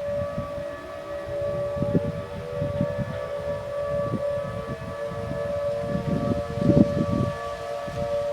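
Several outdoor tornado warning sirens sounding together in a test, blending into steady tones, with one pitch rising slowly over the first few seconds. Irregular bursts of low noise sound underneath, the strongest near the end.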